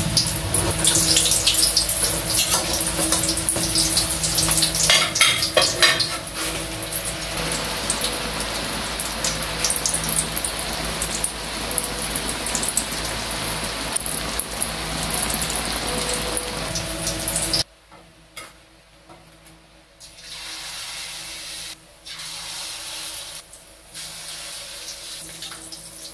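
Dulong omelette patties frying in hot oil in an aluminium wok: a steady, loud sizzle, with a few scrapes and clinks of a metal spatula against the pan about five seconds in. About seventeen seconds in it drops suddenly to a much quieter, patchy sizzle.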